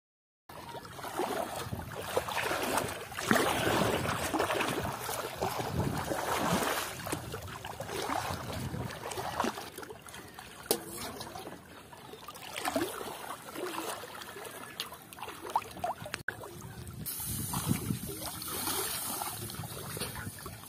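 Water sloshing and splashing as a person wades through knee-deep paddy water and works his hands in it: irregular swishes that rise and fall, starting about half a second in.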